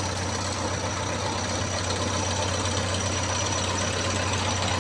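Diesel engine of a working machine running steadily at a constant speed, with an even low hum.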